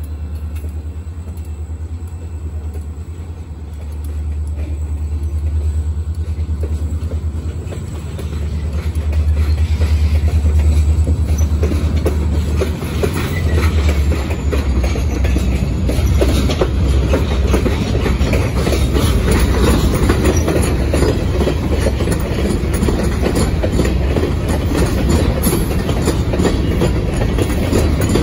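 Huron Eastern diesel locomotives pass with a deep engine rumble. Covered hopper cars then roll by, and the clickety-clack of their wheels over the rail joints grows louder and busier from about halfway through.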